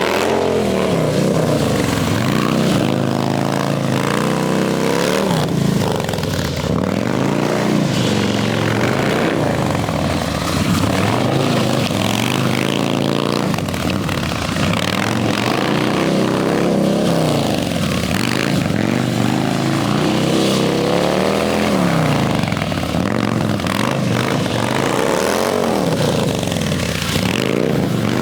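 Harley-Davidson V-twin motorcycle engine revving up and down again and again, its pitch rising and falling every couple of seconds.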